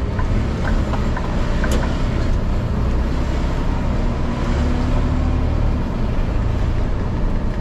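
Garbage truck driving, heard from inside the cab: a steady low engine rumble under even road noise.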